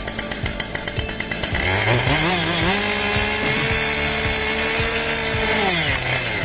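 Chainsaw engine revving up about a second and a half in, held steady at full throttle for about three seconds, then dropping back near the end.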